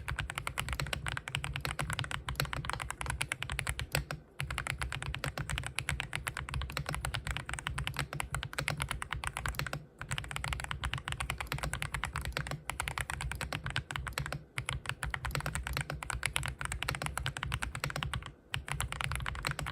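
Fast continuous typing on a custom mechanical keyboard fitted with Haimu Sea Salt tactile switches: a dense stream of key clacks, broken by short pauses about four times.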